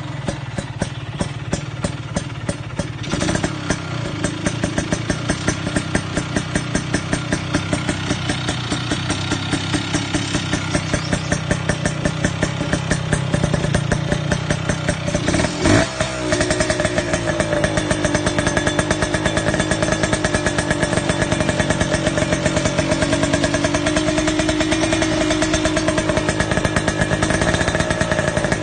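125 cc motorcycle engine idling through an aftermarket RF Pipe 'busog' exhaust, with a steady, even beat of exhaust pulses. There is a brief knock a little past halfway.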